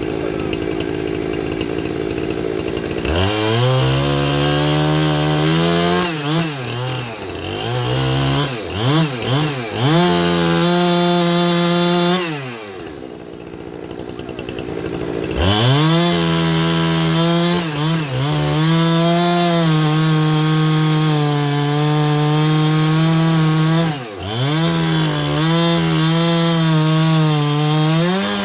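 Chainsaw cutting Geumgang pine, its engine pitch dropping under load and climbing back again and again. It eases off for a few seconds about halfway through, then runs high and steady with brief dips.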